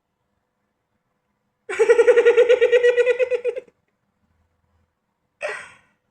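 Cartoon character giggling: a rapid run of high-pitched pulsed laughs lasting about two seconds, followed near the end by one short vocal sound.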